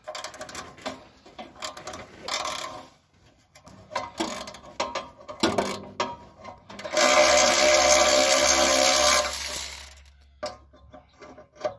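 Electric ratchet backing out the spring-loaded bolts of an exhaust manifold-to-downpipe flange. Metal clanks and short bursts from the tool come first, then from about seven seconds in the motor runs steadily for two to three seconds and stops before the end.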